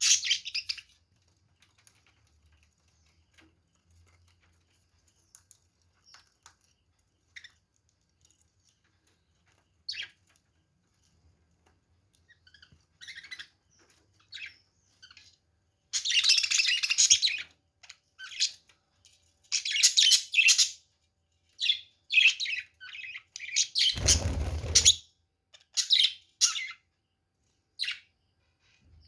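Pet budgerigars chirping, sparse single chirps at first, then a busy run of chirps and chatter through the second half. About two-thirds of the way in, a second-long burst of noise sounds under the chirps.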